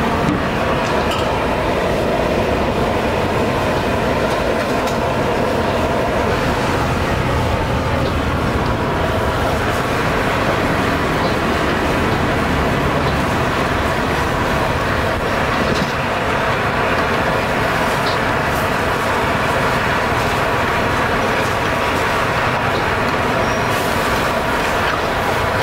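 Steady, even roar of a gas wok burner, with meat boiling in the wok on it.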